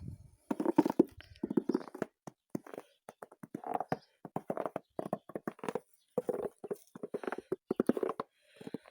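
Footsteps crunching in snow: someone in felt boots (valenki) walking at a steady pace, each step a short crunch.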